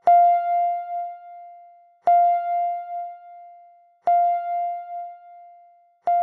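Countdown timer's end alarm: a bell-like chime strikes four times, about two seconds apart. Each strike is one pitched note that rings out and fades with a pulsing wobble.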